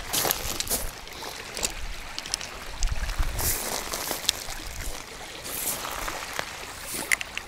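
Small waves lapping and washing onto a shell-and-pebble shoreline, with wind gusting on the microphone now and then and a few light clicks.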